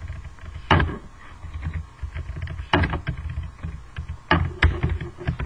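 Typing on a computer keyboard: irregular key clicks, a few louder strokes among quicker, lighter ones.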